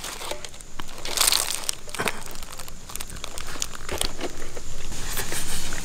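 Banana leaf crinkling and rustling as food is served onto it by hand, with many small sharp ticks and crackles.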